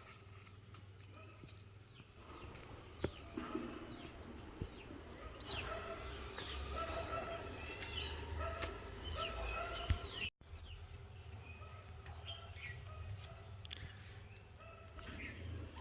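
Birds chirping over and over, with short rapid calls throughout and a busier stretch in the middle, over a low rumble; the sound cuts out for an instant about ten seconds in.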